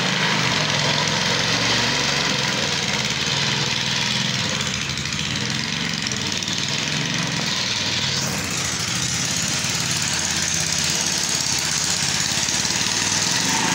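Small engine of a walk-behind cylinder (reel) lawn mower running steadily under load, with a steady hiss of the reel cutting over the dry turf. The tone shifts slightly about eight seconds in.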